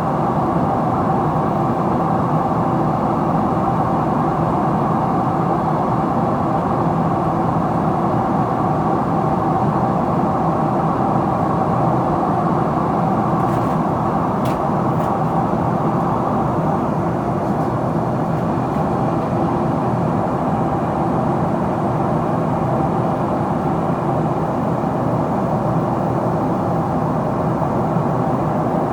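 Steady cabin noise of a Boeing 777-300ER in descent: a constant rush of airflow with its GE90 engines humming underneath.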